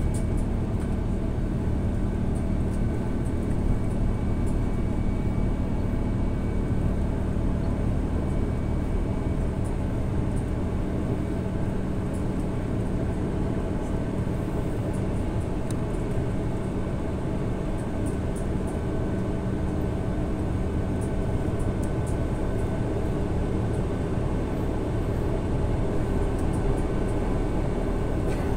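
Cabin noise of an Airbus A330-900neo heard from a window seat beside its Rolls-Royce Trent 7000 turbofan during the climb: a steady rush of engine and airflow noise with a low hum and faint higher steady tones.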